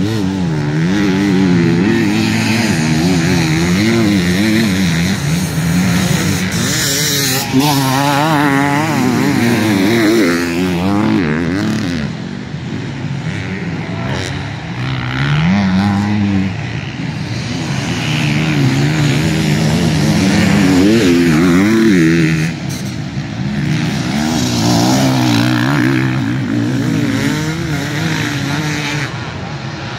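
Enduro motorcycles ridden hard on a special test, engines revving up and dropping back again and again as the riders shift and brake. The sound swells and fades several times as bikes come past.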